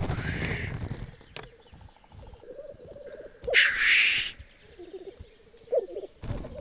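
Male black grouse displaying on the lek: a low, bubbling, cooing rookoo song, broken by a rushing noise at the start and a loud hissing call about three and a half seconds in, with a short thump near the end.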